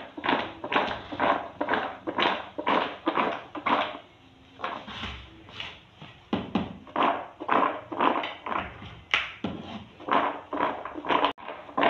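Peanuts being tossed in a bowl with flour to coat them after syrup has been added, making a rhythmic rustling rattle about three times a second, with a brief pause around a third of the way in.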